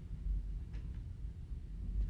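Low steady rumbling hum with faint hiss, the background tone of an old television recording, with no distinct event.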